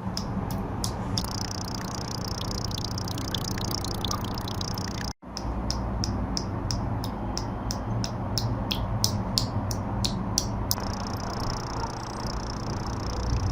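Water drops falling one by one onto a block of tofu, heard as short sharp drips, sparse at first and then about two a second, over a steady low hum. The sound cuts out briefly about five seconds in.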